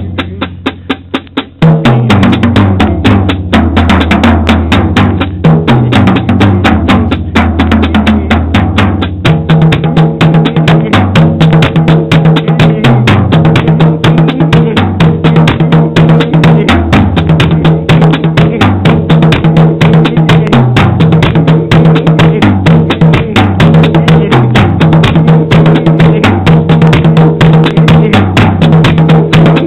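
Drum kit played in a busy, steady groove, with low tuned tom and bass drum tones under quick snare and cymbal strokes. About nine seconds in it settles into a pattern that repeats every couple of seconds.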